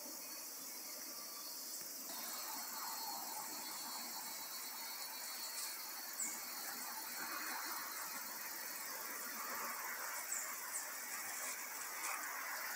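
Forest ambience: a steady high-pitched insect buzz, with a few short high chirps from about six seconds in.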